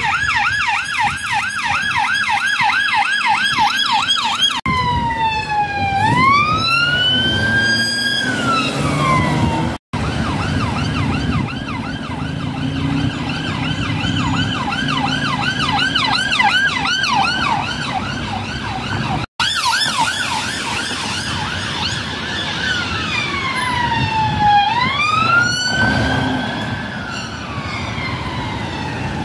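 Police car sirens on vehicles moving through traffic, switching between a fast yelp of about three to four sweeps a second and a slower rising-and-falling wail, over the low hum of engines. The sound cuts off abruptly for an instant twice.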